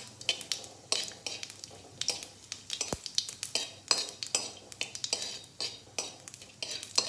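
Steel spoon scraping and clinking against the inside of a steel kadai, stirring cumin seeds and a bay leaf frying in mustard oil for a tadka, in quick irregular strokes about two or three a second.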